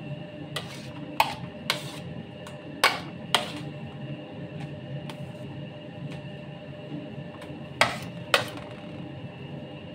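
Sharp metallic clacks of a palette knife knocking against a bowl of whipped cream, mostly in pairs about half a second apart, over a steady background hum.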